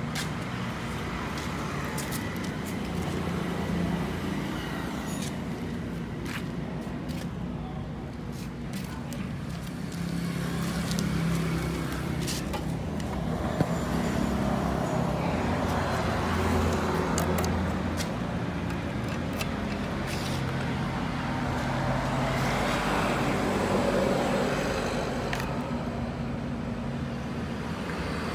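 Yamaha 125ZR's two-stroke single-cylinder engine running steadily at idle, its low hum shifting slightly in pitch, with occasional light clicks.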